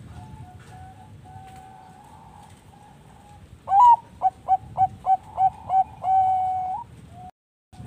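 Zebra dove (Bangkok-type perkutut) singing. Soft cooing notes come first, then about halfway through a loud song phrase: a high opening note, a quick run of about seven short staccato coos and a long held note that rises at its end.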